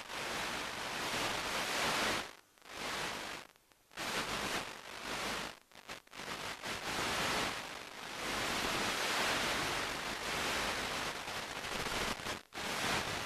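Steady static hiss on the audio of an analog FPV video link's recording, with no engine or motor tone in it, cutting out briefly about four times.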